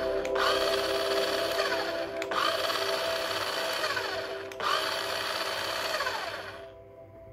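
Small electric motor and gears of a toy RC car whirring as it drives, under background music. The whirring fades out near the end.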